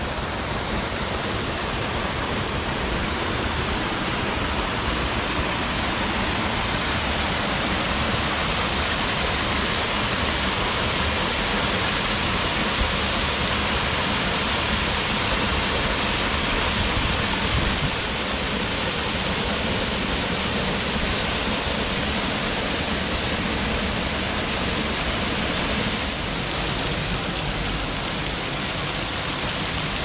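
Waterfall pouring steadily, an even rush of falling water that dips slightly in level about 18 seconds in.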